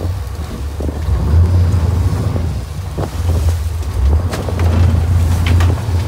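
Wind rumbling on the microphone over the steady noise of a sportfishing boat under way through rough seas, with water rushing past the hull.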